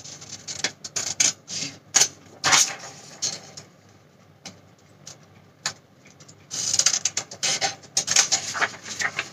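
Scissors cutting through a sheet of coloured paper: a string of crisp snips with paper rustling. There is a lull in the middle with only a few snips, then a busier run of cuts near the end.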